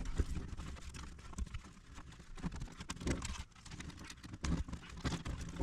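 Irregular clicks, taps and knocks of hands working wiring behind plastic interior trim panels, with light rustling, with no steady tone.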